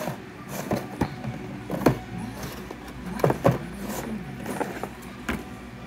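Cardboard toy box being handled and opened on a wooden table: a few sharp knocks and scraping rustles, the loudest about two and three and a half seconds in.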